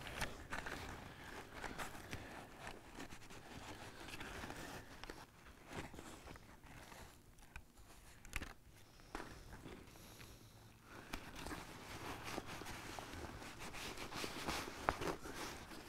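Faint rustling and crinkling of a nylon backpack's fabric and a repair patch's paper backing as the backing is peeled off and the adhesive patch is pressed and smoothed onto the fabric, with scattered small clicks and scrapes.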